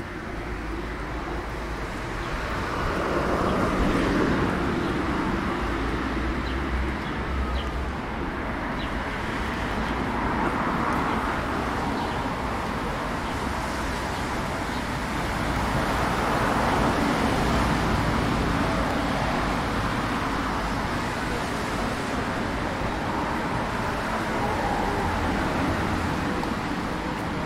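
Street traffic: cars passing one after another, each swelling and fading away, loudest about four seconds in and again around ten and seventeen seconds in.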